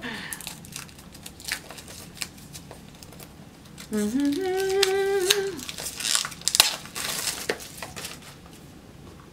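Plastic wrapping crinkling and rustling in short irregular bursts as it is pulled off a boxed oracle card deck. A woman hums a short rising note about four seconds in.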